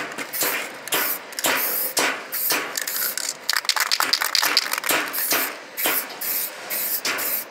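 Aerosol spray-paint can hissing in short repeated bursts, about two a second, as paint is sprayed onto a steel wheel rim.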